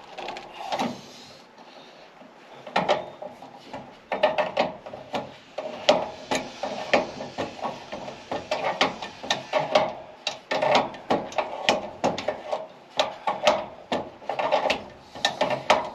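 Hand tool setting nut inserts (rivet nuts) into drilled holes: quick runs of metallic ratcheting clicks and rubbing, starting about three seconds in.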